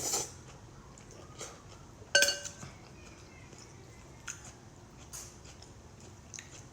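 Eating utensils clinking against a soup bowl: one sharp ringing clink about two seconds in, then a few small taps.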